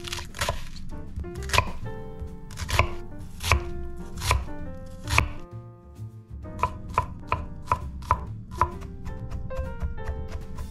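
Chef's knife chopping onion and then mincing garlic on a wooden cutting board: sharp knocks of the blade on the board, spaced out in the first half, then a quicker run of strokes after about six seconds.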